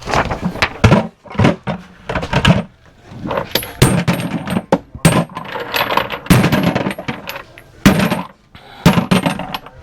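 Small metal objects clattering and clinking: a quick run of sharp metallic hits in clusters, with short pauses between them.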